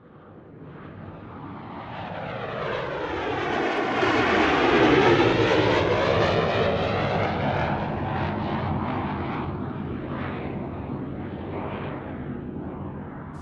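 An aircraft engine flying past: it builds up loud for about five seconds, peaks, then slowly fades away, with a sweeping change in tone as it passes.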